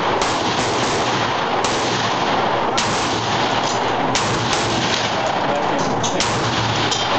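Gunshots, five sharp reports spaced one to two seconds apart, over a continuous loud din.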